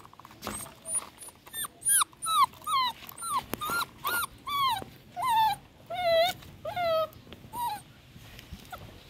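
A puppy whimpering and crying in a quick series of short, high-pitched yelps, each falling in pitch, about two a second, stopping shortly before the end: the distress cries of a frightened puppy.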